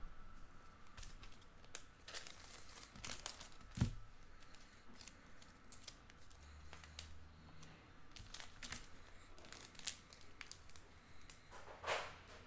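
Faint crinkling and rustling of trading-card pack wrappers and cards being handled, in scattered crackles, with a single knock about four seconds in and a louder crinkle near the end.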